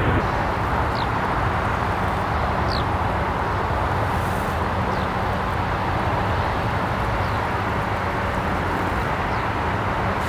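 Steady engine rumble, easing slightly in the first second, with a faint short high chirp about every two seconds.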